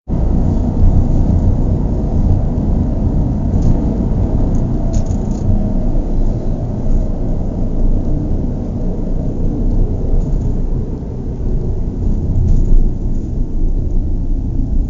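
Low, steady rumble of a running car engine, with a few faint clicks over it.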